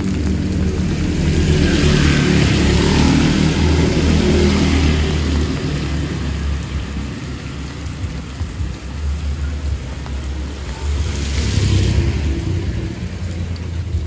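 Heavy rain falling steadily while a motor vehicle passes close by, its engine running low and its tyres hissing through water on the wet road. The hiss swells strongly early on and again briefly near the end.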